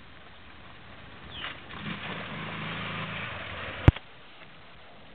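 Honda ATV engine revving as it drives at the boat. About four seconds in comes a single sharp bang as it rams the boat's hull, and the engine sound cuts off suddenly.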